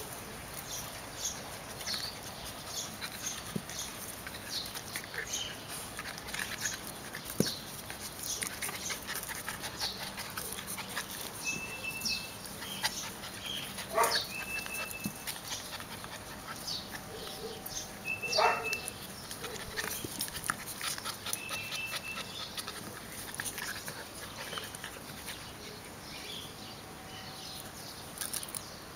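Welsh terrier and Airedale terrier puppies play-fighting, with dog vocalising and scuffling throughout; two short, sharp yelps stand out about halfway through and again a few seconds later, the second the loudest.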